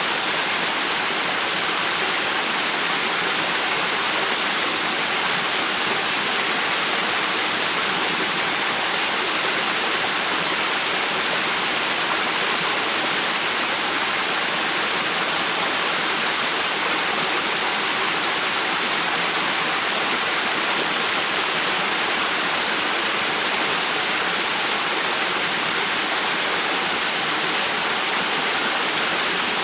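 Rushing river water: a steady, even flow with no breaks or changes.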